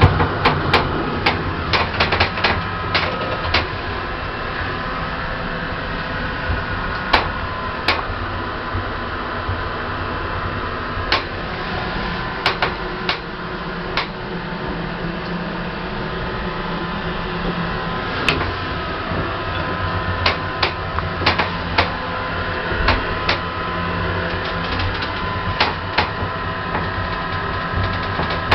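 1980s Thyssen hydraulic lift in motion: a steady hum with a faint whine, broken by clusters of sharp clicks and knocks.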